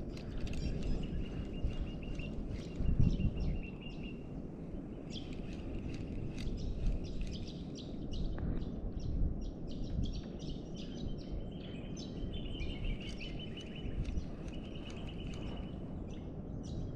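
Outdoor ambience: a steady low rumble with continual high, rapid chirping from birds.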